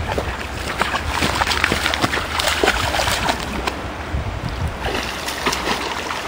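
Shallow river water rushing and splashing over rocks, a dense noise full of small splashes.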